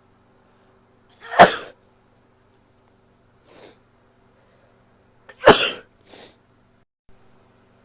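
A woman sneezes twice, once about a second and a half in and again about four seconds later, with quieter short breaths between and after the sneezes.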